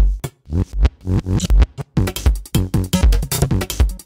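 Electronic background music with a steady drum-machine beat and deep bass hits.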